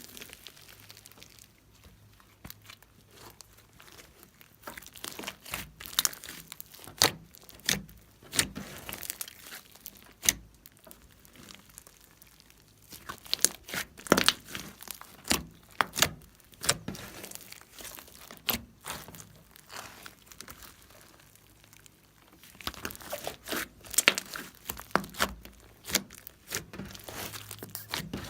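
Slime being squeezed, stretched and pressed by hand, giving off irregular sharp clicks, pops and crackles in quick runs.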